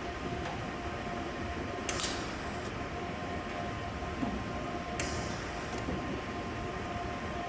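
Steady mechanical hum with a faint constant whine, broken twice by a sharp metallic clink, about three seconds apart.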